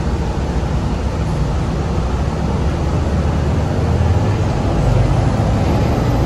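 Detroit Diesel Series 50 inline-four diesel and Allison transmission of a 2004 NABI 40LFW transit bus running under way, heard from inside the passenger cabin as a steady low rumble with road noise. It grows somewhat louder about four seconds in.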